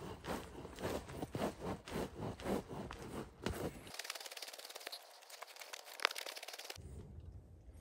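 Hands kneading a bulgur-and-spice çiğ köfte mixture against a stainless-steel bowl, in rhythmic gritty pressing strokes about three a second. About four seconds in the sound turns to a thinner crackling rub with one sharp click, then goes quieter.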